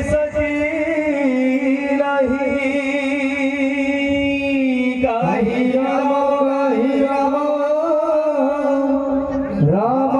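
Odia kirtan: male voices chanting in long held notes that waver and dip in pitch about five seconds in and again near the end, over drum and brass hand-cymbal accompaniment.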